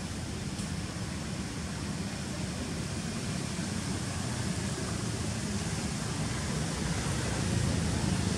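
Steady low rumbling background noise with hiss above it and no distinct events, growing slightly louder near the end.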